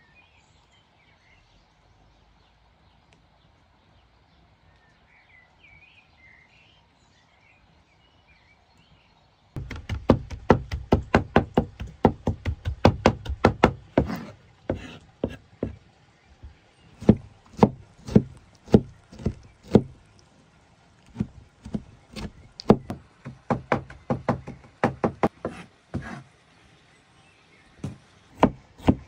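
A few seconds of quiet outdoor ambience with faint chirps, then a knife chopping vegetables on a wooden board. The sharp knocks start suddenly, about four a second, in quick runs with short pauses.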